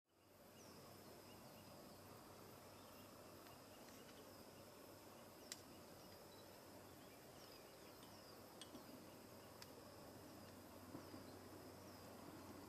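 Faint outdoor ambience of insects: a steady high trill with short chirps repeating about once a second, and a few sharp clicks.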